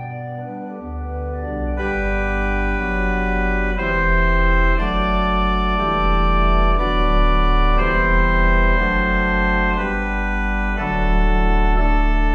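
Organ music: slow, held chords over a deep sustained bass, the chord changing every second or two, growing fuller and louder about two seconds in.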